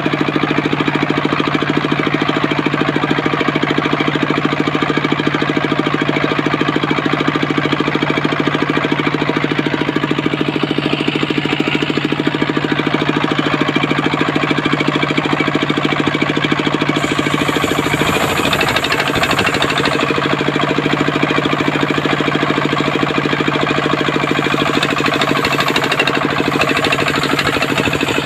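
Engine of a homemade circular sawmill running steadily under load, with a rapid, even knock from its firing strokes.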